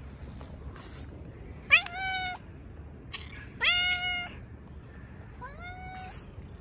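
A cat meowing three times, about two seconds apart, each call rising in pitch and then holding.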